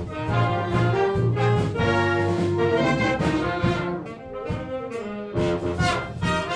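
A concert band of woodwinds and brass playing held chords, with a softer, thinner passage about two-thirds of the way through before the fuller band comes back in.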